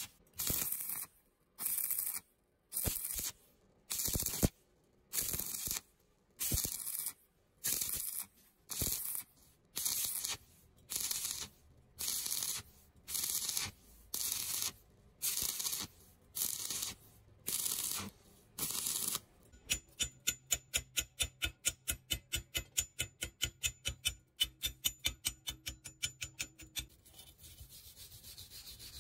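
Stick-welding arc with a KT-421 rod, crackling in short bursts a little under once a second as the arc is struck and broken over and over: an intermittent stitch technique that keeps heat down on thin-walled pipe. About two-thirds of the way in the arc stops and a quick run of small knocks follows, about eight a second, as the slag is cleared. Near the end a steady whir starts as a wire wheel is put to the weld.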